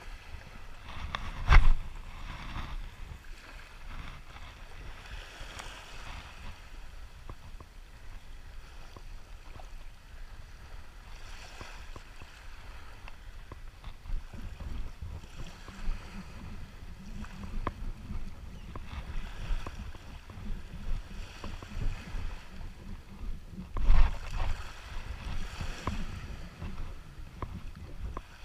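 Small waves washing on a sandy shore, with wind rumbling on the microphone. Two sharp knocks stand out as the loudest sounds, about a second and a half in and about four seconds before the end.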